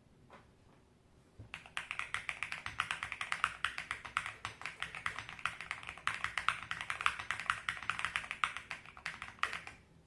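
Custom mechanical keyboard being typed on quickly, a dense stream of clacking keystrokes that starts about a second and a half in and stops just before the end.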